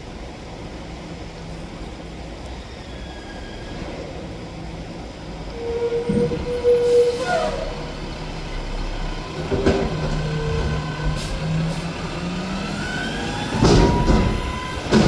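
A Mack McNeilus front-loader garbage truck at work, its diesel engine running and then speeding up with a rising whine. There is a hiss of air and a brief squeal about 7 s in. Heavy metal bangs come near the end.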